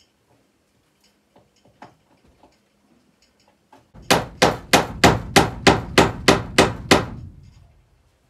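A hammer driving a nail: about ten quick, evenly spaced blows, roughly three a second, each with a short ring. Faint light ticks come before them.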